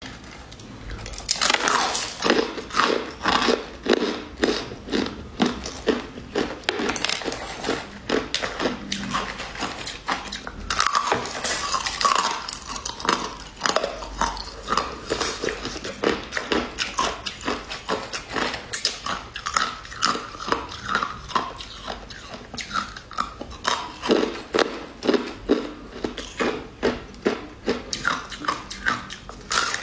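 Close-up crunching and chewing of crushed ice: a rapid run of crisp bites, several a second.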